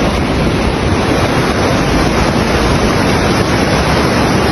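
Swollen floodwater stream rushing past in a loud, steady rush of water.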